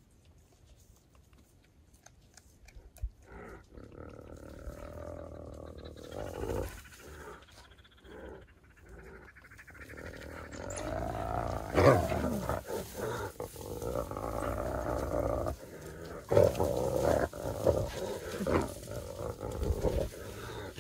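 A spotted hyena and a pack of African wild dogs calling as they clash over a kill, the hyena trying to steal it and the dogs defending it. The calls start about three seconds in and rise and fall in pitch. The loudest comes about twelve seconds in, and a run of them follows from about sixteen seconds.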